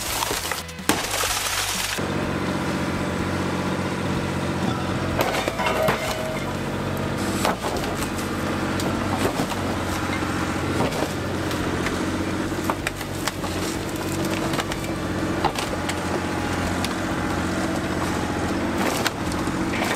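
A sledgehammer smashes a car window in the first two seconds. Then a wheeled excavator's diesel engine runs steadily under load while its bucket presses down on the car roof, with scattered cracks and crunches as the body and glass give way.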